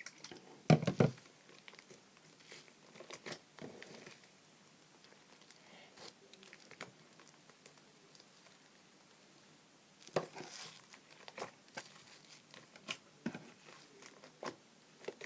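Hands kneading and squishing fluffy shaving-foam slime with freshly added activator, giving irregular sticky crackles and pops. A louder bump comes about a second in, and the crackling thins out in the middle before picking up again.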